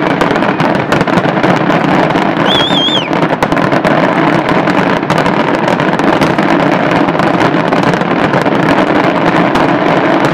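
Fireworks: a dense barrage of aerial shells bursting and crackling so closely together that they merge into one continuous rumble. A brief warbling whistle sounds about two and a half seconds in.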